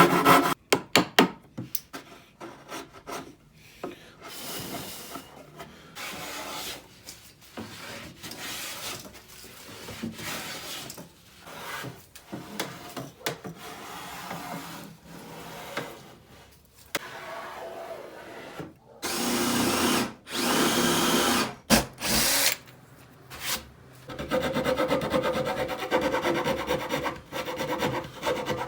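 Woodworking sounds while a shelf is fitted inside a wooden cabinet: a string of knocks on wood at the start, then scraping and rubbing of wood, and a power drill running in bursts, with a longer steady run near the end.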